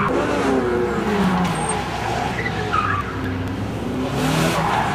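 A vehicle's engine revving up and down through tight pylon turns, its pitch rising and falling several times, with some tyre scrub.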